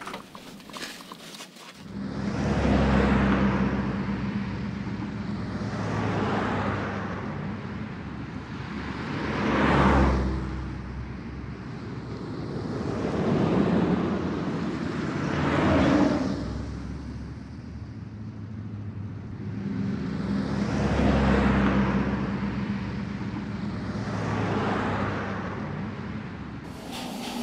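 Car driving on a road, heard from inside the cabin, starting about two seconds in: a steady engine and road hum, with road and traffic noise swelling and fading every few seconds.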